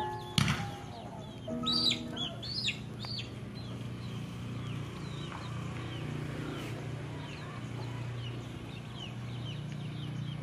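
Birds calling outdoors: a few louder curved calls between about 1.5 and 3 seconds in, then many small chirps, over a steady low hum. Held music notes fade out in the first second and a half, and a single sharp click sounds about half a second in.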